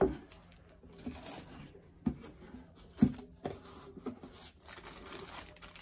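Cardboard box and packaging being handled by hand: a few sharp knocks of cardboard, the loudest about three seconds in, with quiet rustling in between.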